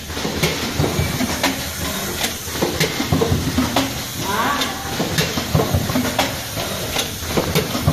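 Automatic card hot stamping machine running: a steady mechanical hiss and hum with repeated sharp clicks, roughly twice a second, from its moving parts. A faint voice comes in briefly about halfway through.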